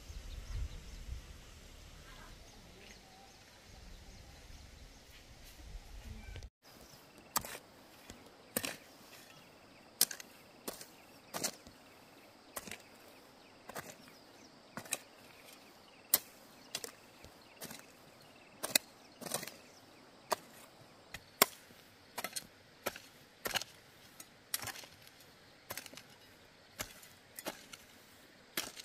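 Hand hoe chopping into dry, grassy soil: a steady run of sharp strikes, somewhat more than one a second, as the ground is broken up for planting corn. Before them, for the first few seconds, only a faint low rumble.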